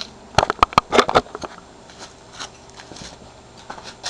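A quick run of sharp clicks and knocks in the first second or so, then faint scattered small clicks.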